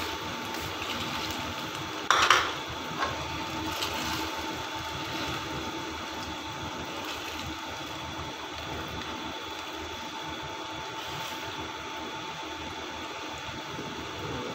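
Chicken manchurian gravy cooking over high heat in a frying pan, with a steady bubbling sizzle while a slotted spatula stirs it. A loud scrape of the spatula against the pan comes about two seconds in, with a few lighter knocks after it. A steady hum runs underneath.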